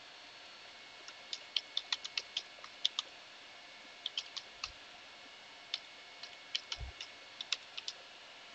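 Computer keyboard keys clicking as a web address is typed, in quick spurts with short pauses between them.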